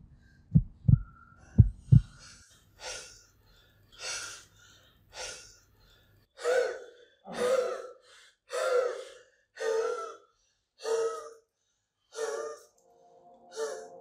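Heartbeat thumps in pairs over a low drone for about the first two seconds, then a person's heavy gasping breaths, about one a second, growing louder and more strained, with music coming in near the end.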